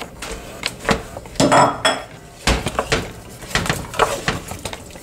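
Wooden spatula scraping and knocking against an aluminium cooking pot while cooked red beans are stirred into a simmering sauce, in irregular clatters.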